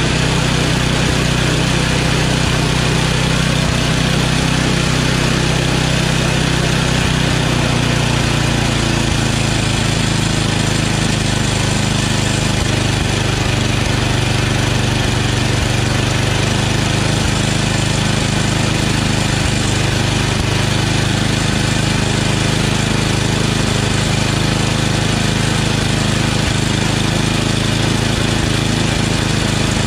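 The single-cylinder engine of an 8 hp Tecumseh snowblower running steadily on a newly fitted replacement carburetor, at an even speed without surging or hunting.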